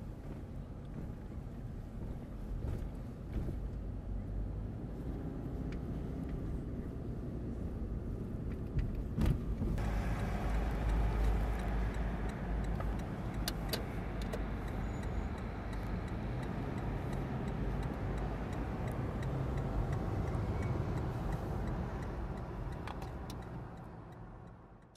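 Road and engine noise inside a moving car: a steady low rumble, with more tyre hiss and a louder rumble from about ten seconds in, and a few light clicks. It fades out at the very end.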